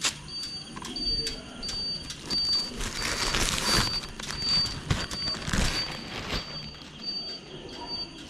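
A high-pitched electronic beep repeating evenly about twice a second, over rustling noise that swells about three to six seconds in.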